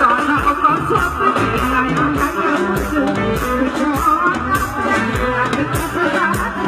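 Loud Ethiopian festival music with a steady beat and a singing voice, played for a dancing crowd.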